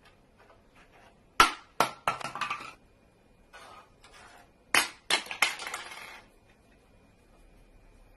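Small glass Christmas ornaments knocked about by a cat's paw, clinking and clattering against each other and the wooden tabletop in two bursts of sharp clinks, about a second and a half in and again about five seconds in.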